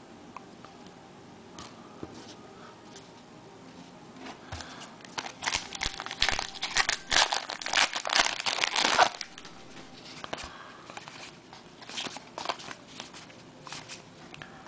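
Foil wrapper of a baseball card pack being torn open and crumpled, a dense crinkling that starts about five seconds in and lasts about four seconds, followed by light clicks of cards being handled.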